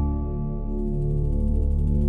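Ambient meditation music of sustained, slowly shifting synth pad chords tuned to 432 Hz, with a singing bowl's tone fading out. A faint sea-wave hiss begins to rise a little under a second in.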